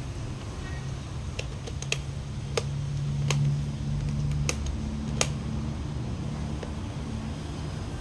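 Sharp clicks and taps, about six over five seconds, from small hard plastic parts being handled and fitted during a blender repair, over a steady low hum.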